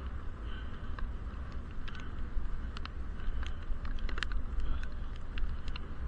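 Wind on a helmet-mounted action camera sealed in its waterproof case while cycling: a steady low muffled rumble with a hiss. Irregular sharp ticks come over it a few times a second.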